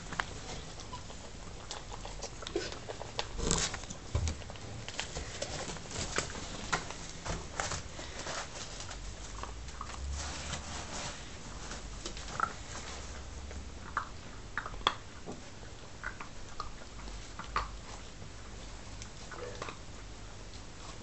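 Seven-week-old Nova Scotia Duck Tolling Retriever puppies moving about in wood shavings and bedding: scattered light clicks, scratches and rustles, with a few short squeaks.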